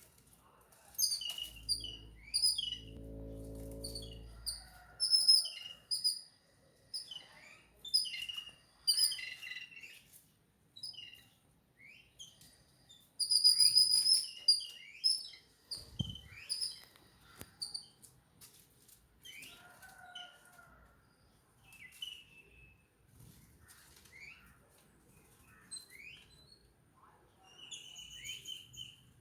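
Jungle babblers calling: many short, rapid chirps in bursts, with the busiest and loudest chattering about five seconds in and again around thirteen to fourteen seconds. A low hum sounds under the calls for the first few seconds, and a single low thud comes about halfway through.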